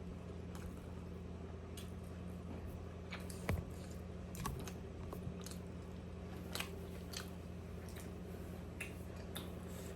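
Close-up chewing and biting of juicy momo dumplings: scattered wet mouth smacks and clicks, one louder about three and a half seconds in, over a steady low hum.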